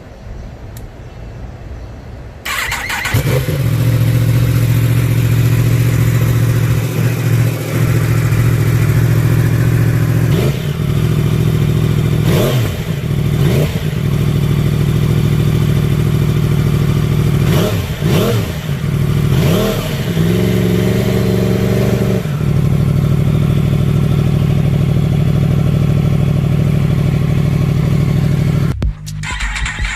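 Yamaha R1 crossplane inline-four with an aftermarket exhaust firing up a few seconds in and settling into a loud, lumpy idle. It is blipped several times in short quick revs, held briefly at a higher idle, then drops back to idle.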